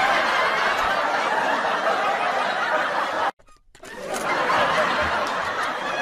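Laughter: a dense, steady wash of snickers and chuckles, which drops out for about half a second a little over three seconds in and then fades back up.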